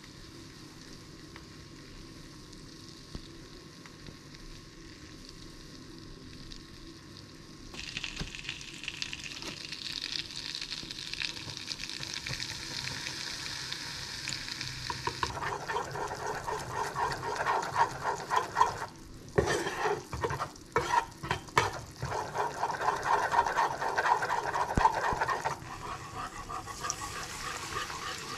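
Butter sizzling in a saucepan, growing louder about a third of the way in, then flour being stirred into it as a roux, with the utensil scraping and knocking against the pan several times. Near the end, milk starts pouring into the roux.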